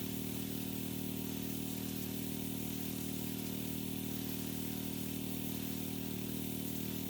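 Pressure washer engine running at a steady speed, with an even, unchanging drone.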